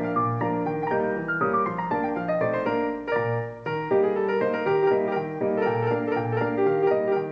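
Background piano music: a solo piano piece with a falling run of notes in the first half.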